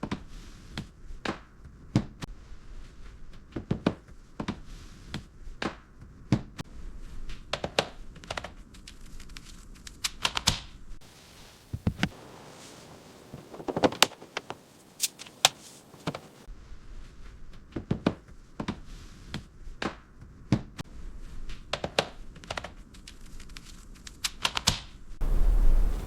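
Irregular taps, clicks and thunks of hand work with tools and parts, about one or two a second. Shortly before the end a louder low rumble comes in.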